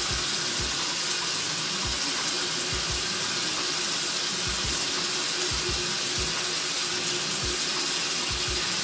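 Steady hiss of water running from a bathroom tap, with scattered soft low thumps.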